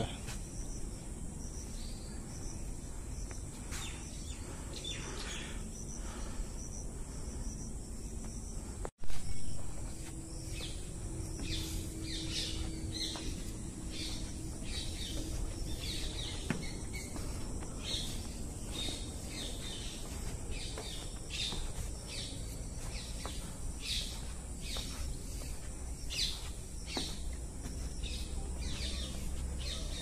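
Forest ambience: a steady high insect buzz under many short, repeated bird calls that grow busier after about ten seconds. About nine seconds in, the sound cuts out for an instant and a single loud bump follows.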